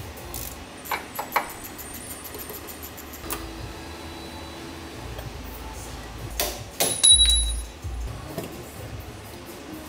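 Hard parts clinking and knocking as they are handled: a few sharp clicks, then a heavier thump with a brief metallic ring about seven seconds in, over faint background music.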